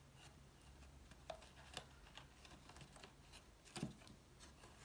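Near silence broken by a few faint clicks and taps of cardstock pieces being handled, the loudest a little before the end.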